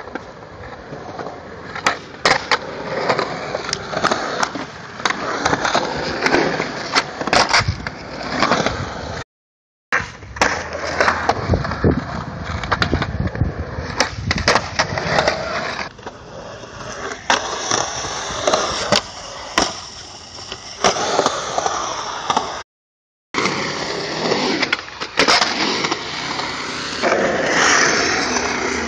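Skateboard wheels rolling on concrete ramps, broken by many sharp clacks of boards popping, flipping and landing. The sound drops out briefly twice, at cuts between clips.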